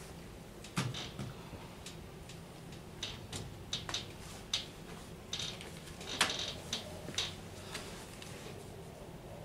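Scattered light knocks, clicks and rustles from bedding and metal-framed cots being handled and sat on, with the sharpest knocks about a second in and about six seconds in.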